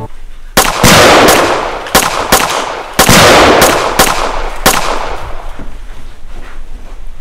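A rapid string of about ten gunshots in the first five seconds, each a sharp crack with a long decaying echo. The two loudest come about one and three seconds in, then the firing stops.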